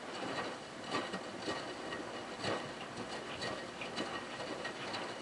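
Miele W3033 front-loading washing machine tumbling a wet cotton blanket in sudsy wash water: sloshing and splashing with irregular soft knocks about once a second as the load drops inside the turning drum.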